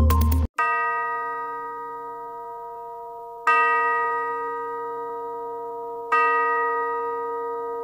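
Electronic music cuts off just after the start, then a bell-like chime is struck three times about two and a half seconds apart, each strike ringing on and fading.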